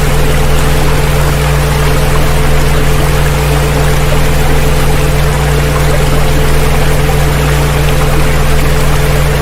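Several steady low tones held unchanged, layered over a continuous rush of water, as in a healing-frequency track set to a water sound.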